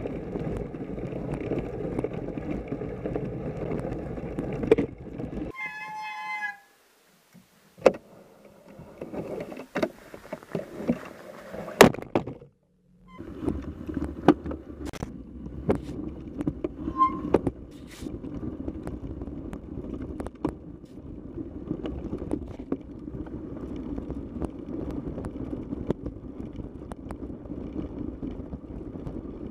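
Radon ZR Race 6.0 mountain bike ridden through snow, its tyres crunching over the snow and the frame and drivetrain rattling and clicking, with wind on the bike-mounted camera. Partway through the noise drops away to scattered clicks and a brief high squeal before the riding sound resumes.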